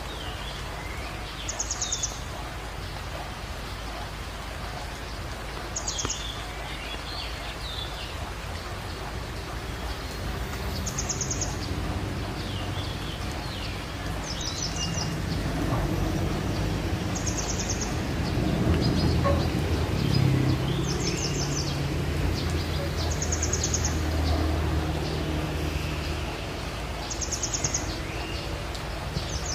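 Birds calling over a rice field: a short, high trilled call repeats every few seconds, with fainter chirps between, over a steady outdoor noise bed. A low rumble swells through the middle.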